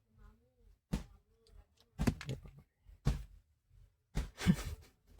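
Hands and tools knocking on car parts during a repair: sharp taps and knocks about one a second, bunching into a louder clatter with a short scrape about four seconds in.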